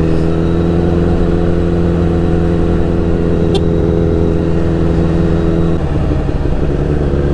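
Honda CBR1000RR's inline-four engine running at a steady low rpm while riding slowly. About six seconds in, the engine note briefly wavers, then settles again.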